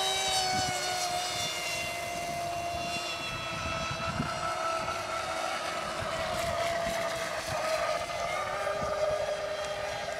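38-inch RC speedboat running flat out with its brushless electric motor on a 5S LiPo pack, a high-pitched whine whose pitch shifts with throttle as it runs across the water.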